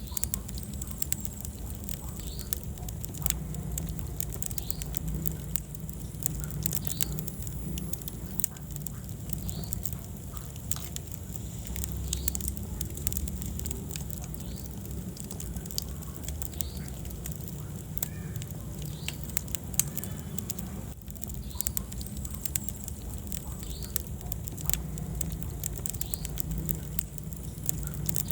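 Wood fire crackling in a fireplace: frequent sharp pops and snaps over a low steady rumble of flame, with faint short squeaks recurring every few seconds.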